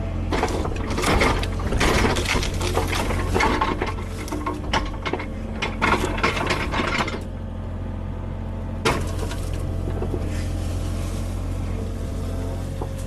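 Kubota diesel mini excavator running steadily while branches and wood crack, snap and clatter as it works a fallen tree. There is a dense run of cracking over the first seven seconds and one sharp crack about nine seconds in.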